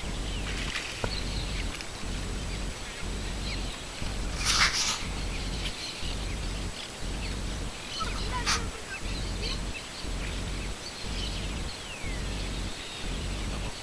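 Wild birds calling along the river, with scattered short calls and two louder harsh calls about four and a half and eight and a half seconds in, over a steady low rumble.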